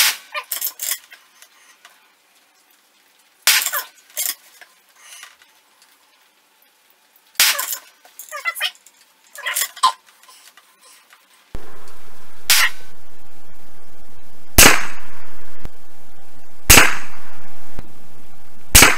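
Savage 110 bolt-action rifle in .223 Remington firing, shots a few seconds apart with the metallic clicks of the bolt being worked after each. Partway through, a steady rushing noise sets in, with four sharp cracks about two seconds apart.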